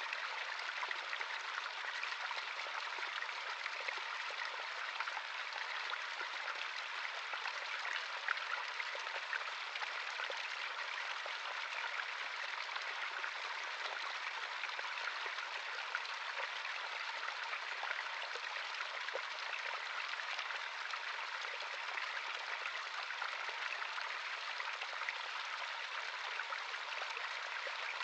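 Stream of running water: a steady, bright babbling, with the fine splashes and trickles of water flowing over rocks.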